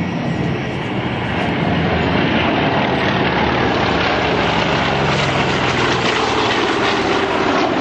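Several piston-engined WWII propeller fighters flying past in formation and breaking away, their engines a loud, steady drone that builds over the first couple of seconds. Near the end one engine note slowly falls in pitch as an aircraft passes.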